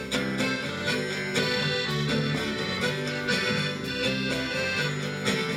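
Instrumental break of a song with no vocals: a sustained melody over a steady beat.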